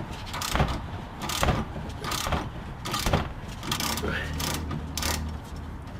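Socket wrench with an 18mm socket being worked in repeated short strokes, about one stroke a second, loosening the top bolt of a Jeep Grand Cherokee sway bar link, with metal clicking and scraping on each swing. A low hum joins in the second half.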